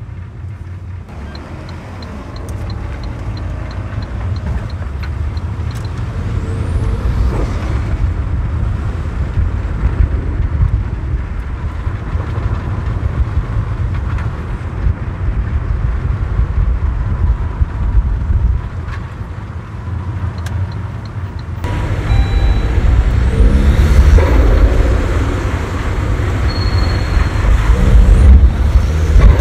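Saab 9-5 heard from inside the cabin while driving over rough, broken town roads: a steady low rumble of engine, tyres and road noise. The rumble gets louder and busier about three-quarters through, and a light rapid ticking sounds for the first few seconds.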